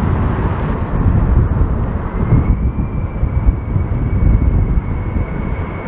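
Boeing 747-400 freighter's jet engines on final approach: a low rumble, with a steady high engine whine setting in about two seconds in.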